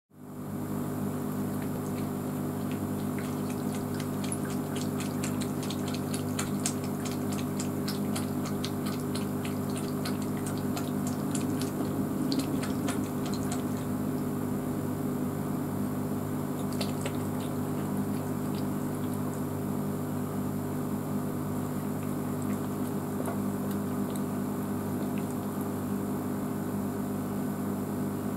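A tabby cat lapping water from a bowl, a quick run of small wet clicks through the first half. Under it runs a steady low hum with trickling water.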